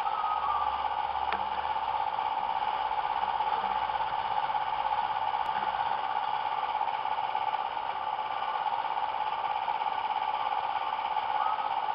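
A steady mechanical whirring hum with hiss and a constant mid-pitched tone, unchanging throughout.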